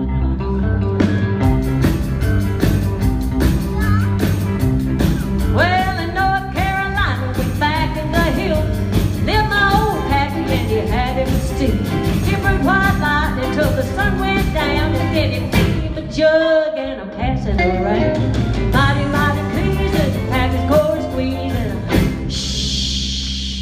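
Live band playing an uptempo rock-and-roll number with electric guitar, bass, drums and keyboard over a steady beat. There is a brief hissing burst near the end.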